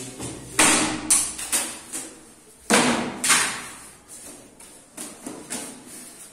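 Hollow plastic PVC ceiling panels knocking against each other and the wall as they are handled. There are several sharp hollow knocks, the loudest in the first three or four seconds, then a few fainter taps.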